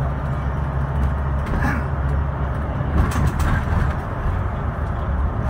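Scania K320IB bus's diesel engine running steadily under way, heard inside the cabin as a deep drone mixed with road noise. There is a brief knock about three seconds in.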